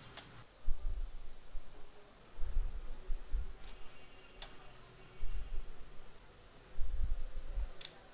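Computer mouse button clicking a few times, sharp separate clicks, as the spot healing brush is dabbed over blemishes. Four low muffled thuds or rumbles from the desk or microphone are the loudest sounds.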